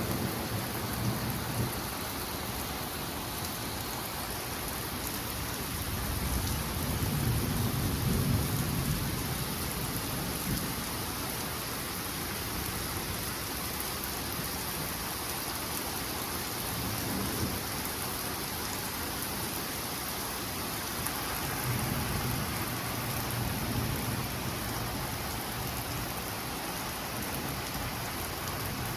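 Steady rain falling hard during a thunderstorm, with rolling rumbles of thunder, the loudest about six to ten seconds in and another a little past twenty seconds.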